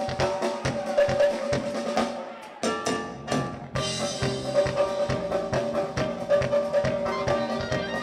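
A live band playing, with a drum kit beat and electric bass under a held melody line. The music drops back briefly about halfway through, then the full band comes back in.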